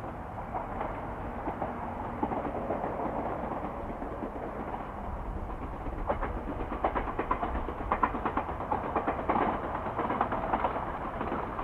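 A Chichibu Railway train running past with a steady rumble. About halfway through, rapid clicking of the wheels over the rail joints grows louder and denser.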